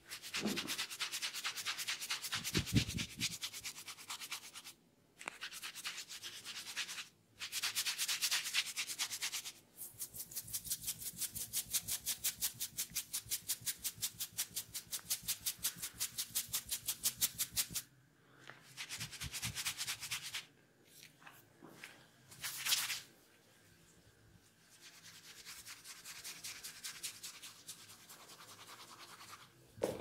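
Fingers rubbing and scratching through long hair and over the scalp in a head massage: bursts of hissy rustling, with a long middle stretch of quick, even strokes. A brief low thump comes between two bursts early on.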